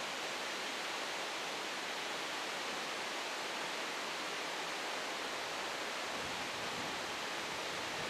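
Steady, even background hiss with no bird calls or splashes.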